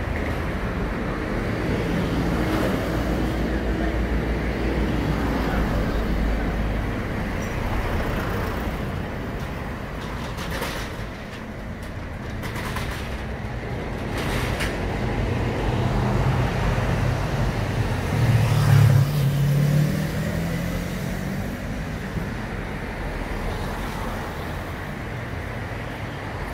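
Road traffic on a city street, a steady rumble of passing cars. About two-thirds of the way through, a vehicle's engine passes close and is the loudest sound, its pitch rising slightly as it fades.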